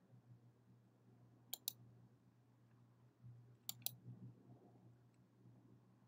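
Two computer mouse clicks, each a quick press-and-release pair, about a second and a half in and again near four seconds, over a faint low hum.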